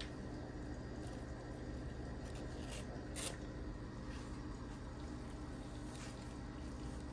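Protective paper sheet from a new laptop being lifted off the keyboard and handled, giving a few short soft crinkles, the loudest about three seconds in, over a steady low hum.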